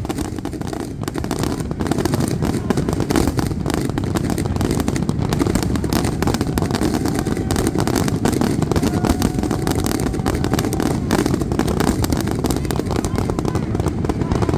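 Aerial fireworks going off in a dense, continuous barrage: rapid overlapping bangs and crackle over a steady low rumble.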